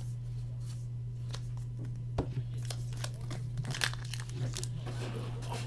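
Foil wrapper of a trading-card pack crinkling and tearing open, with cards being handled, starting about two seconds in as a run of sharp crackles; a steady low electrical hum sits underneath.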